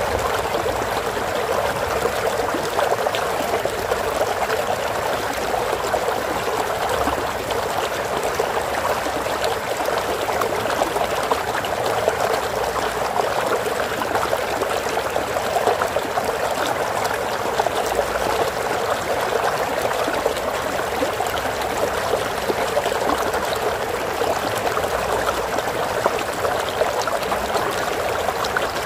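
Stream water flowing steadily over stones, a continuous trickling and splashing rush.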